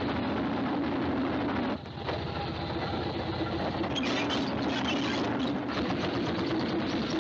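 Steam engine running with a rapid, even chugging clatter, with a short drop about two seconds in and a burst of higher hiss about four seconds in.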